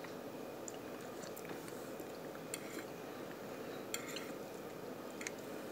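A fork clicking faintly against a plate a handful of times during a meal, over a steady background hiss.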